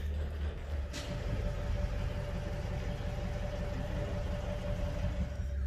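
A machinery engine running steadily, a low rumble with a faint steady whine over it.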